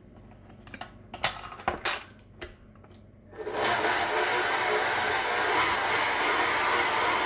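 A few sharp clacks and knocks as the tilt-head stand mixer's head is lowered into place, then about three and a half seconds in its electric motor starts and runs steadily, the flat beater turning through cookie batter.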